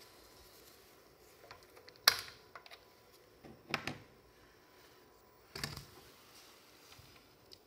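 A few short sharp clicks and taps, the loudest about two seconds in, a quick cluster near four seconds and another past five and a half seconds, over a faint steady whine.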